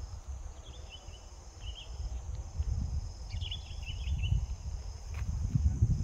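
Outdoor nature ambience: a steady high insect drone with a few short chirps over it, and a low, uneven rumble that grows louder toward the end.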